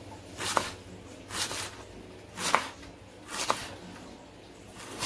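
Large kitchen knife slicing a white onion into rings on a cutting board, about one cut a second: each stroke a short crunch ending in a sharp click as the blade meets the board.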